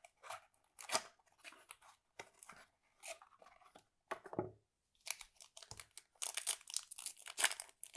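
Small cardboard trading-card box being opened and handled, with scattered scrapes and taps. From about five seconds in, a foil 2021 Topps 206 card pack crinkles and tears as it is ripped open.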